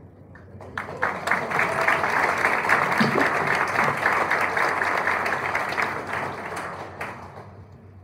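Audience applauding: clapping starts about a second in, holds steady, and dies away near the end.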